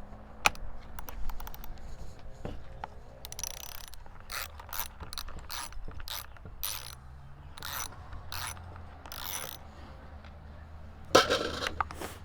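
Hand socket ratchet clicking in short bursts, about a dozen back-strokes, as a bolt is worked loose on a chainsaw. A louder clatter comes near the end.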